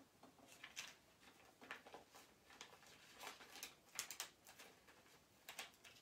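Faint crinkling and rustling of a thin clear sheet being handled while cut heat-transfer vinyl snowflakes are taken off it: a scatter of soft crackles, thickest about four seconds in.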